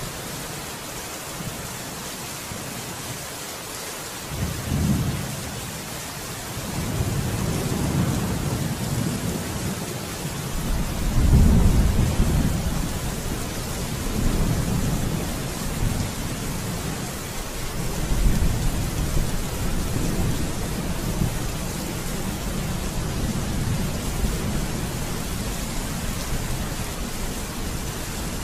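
Rain falling steadily, with low rolls of thunder swelling and fading several times; the loudest roll comes about eleven seconds in.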